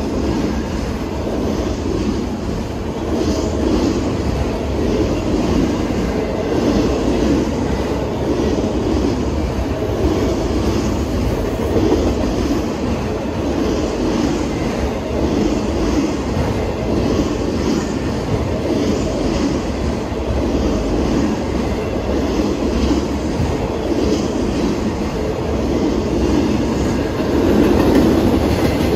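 Empty autorack freight cars rolling past: the steady rumble of steel wheels on rail, with a rhythmic clickety-clack that repeats every second or so.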